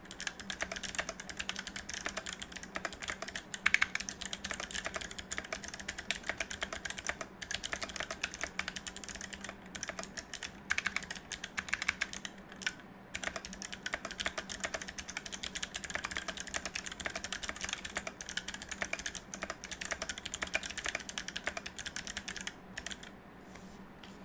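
Continuous typing on a mechanical keyboard with clicky Kailh Box Navy switches in a steel plate and acrylic case: a dense run of sharp clicks with a few brief pauses. The typing stops a couple of seconds before the end.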